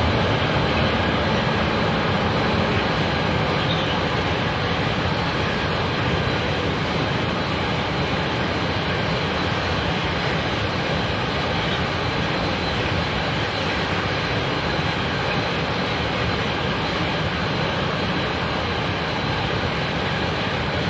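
A train passing at speed: a steady rolling rumble of wheels on rail, with a faint steady whine above it, easing off slightly as it goes on.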